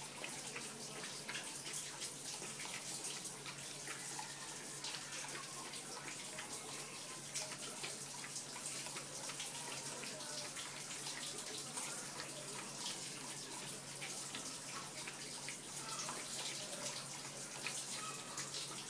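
Puppy lapping milk from a plastic bowl: a steady, rapid run of wet lapping clicks.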